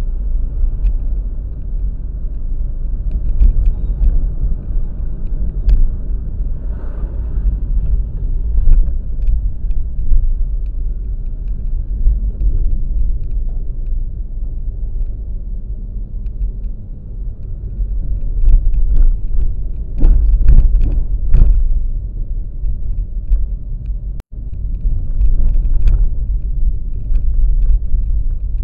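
Steady low road rumble of a moving vehicle, with scattered knocks and rattles from bumps in the road. It swells louder a few times and drops out for an instant about 24 seconds in.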